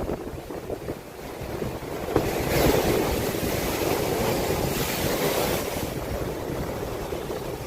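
Large storm waves breaking on the beach, with a rushing wash of surf that swells about two seconds in and slowly dies away, and wind buffeting the microphone.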